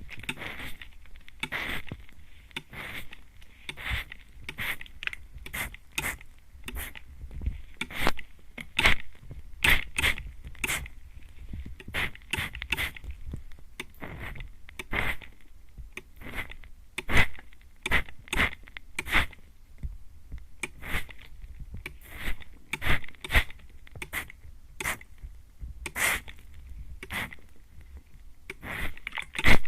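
Mist spray bottle sprayed at close range into the ears: dozens of short, sharp spritzes, about one or two a second at irregular spacing.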